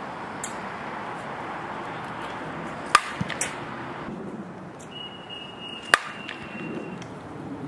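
Two sharp cracks of a softball bat hitting pitched softballs, about three seconds apart, over a steady background hiss.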